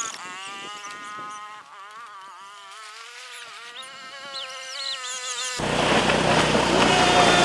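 Small single-cylinder engine of a three-wheeler played back sped up, which turns it into a steady high-pitched buzz with a slightly wavering pitch. About five and a half seconds in, it cuts back to normal speed: the engine running at a low, steady pitch.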